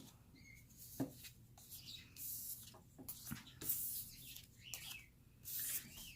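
Faint rustling and light ticks and taps of hands handling unboxed items, photocards and packaging, in short irregular bursts.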